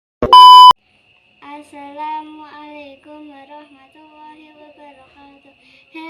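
A short, loud electronic beep just after the start, then a child singing softly in held notes.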